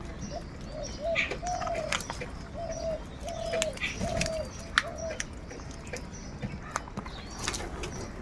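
Birds calling: a run of about nine short, arching, hooting notes spaced about half a second apart, over scattered sharper calls and clicks.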